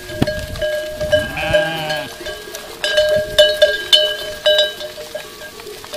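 A flock of sheep and goats moving with many neck bells clanking and ringing, with one bleat from the flock about a second and a half in.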